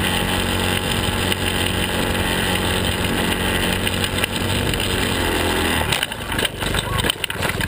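Helix 150 go-kart's small engine running at speed over rough ground, with a rushing noise on the onboard microphone. From about six seconds in the engine fades and a series of knocks and bangs follows as the kart rolls over.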